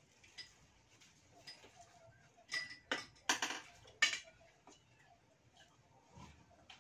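Spoons and dishes clinking at a dinner table: a quiet stretch, then a cluster of four or five sharp clinks a little past halfway, a couple of them ringing briefly.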